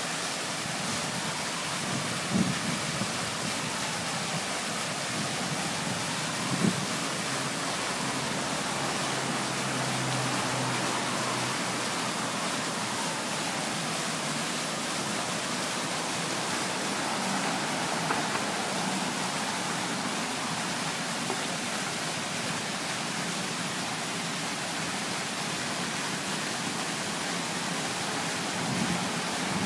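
Fountain water falling and splashing in a steady rushing hiss. Two brief knocks cut through it, about two and seven seconds in.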